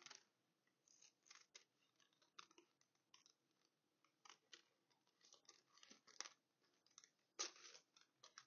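Small scissors snipping out a shape from parchment paper in short, irregular faint cuts.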